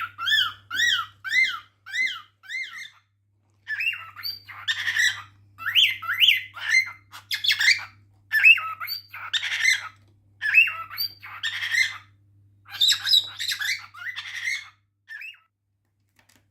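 A male cockatiel's excited showing-off calls. It opens with a quick run of short whistled notes, each rising and falling, about three a second. These give way to harsher chirps and squawks that stop about a second before the end.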